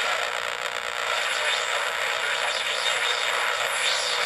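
Homemade AM radio (TA7642 receiver chip driving an LM386 amplifier and small speaker) playing loud static hiss with crackle while its tuning knob is turned.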